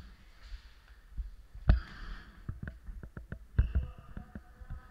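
Irregular knocks and clicks from a shaking worn camera and rattling gear as the player moves, with one louder knock about two seconds in and a run of quicker clicks after it.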